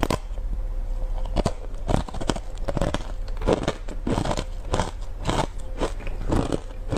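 Hard ice cubes coated in matcha powder being bitten and chewed close to a lapel microphone: a quick, uneven run of sharp crunches, about two or three a second.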